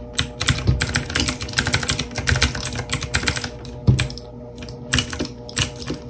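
E-Element Z-88 mechanical keyboard with clicky blue switches, typed on quickly and irregularly: fast runs of sharp key clicks with short gaps, and one louder clack just before four seconds in.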